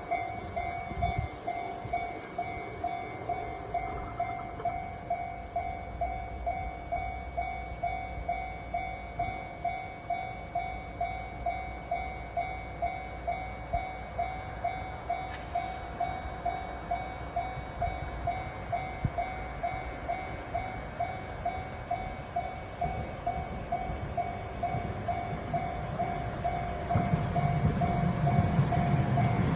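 Japanese level-crossing warning bell ringing at an even rhythm of about two strokes a second. Near the end the rumble of an approaching Chikuho Electric Railway train grows louder.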